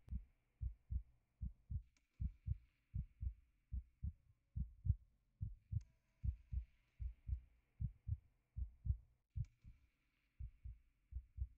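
A heartbeat on the soundtrack: steady, regular lub-dub double thumps, low and dull.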